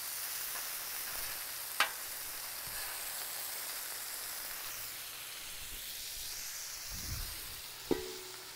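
Beef burger patties and bacon sizzling on a Blackstone flat-top griddle, a steady frying hiss. There is a sharp click about two seconds in. Near the end a stainless basting dome is set down over the patties with a metallic clank that rings briefly.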